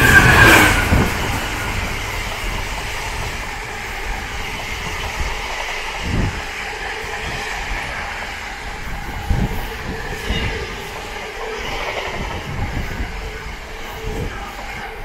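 Class 66 diesel locomotive passing at speed with a container freight train. The locomotive goes by loudly at the start, its sound falling in pitch, then the container wagons rumble steadily past with occasional thumps of wheels over rail joints.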